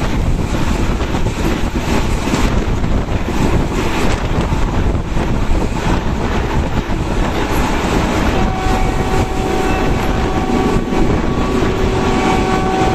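Wind buffeting the microphone over the running noise of a passenger train at speed, heard from an open door or window of the coach. A faint steady tone joins about eight seconds in.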